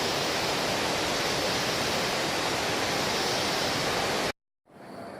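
La Fortuna Waterfall's falling water, a steady dense rush of noise that cuts off abruptly about four seconds in, followed by a much quieter outdoor background.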